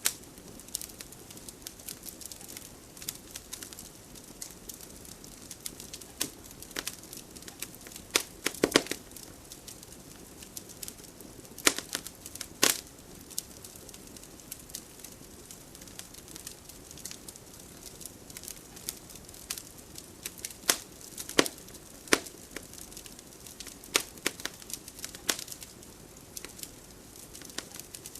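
Wood fire burning in a fireplace: a soft steady hiss with irregular crackles and sharp pops, a few of them louder than the rest.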